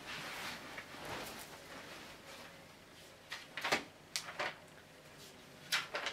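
Rustling, then a handful of sharp clicks and knocks in a small room.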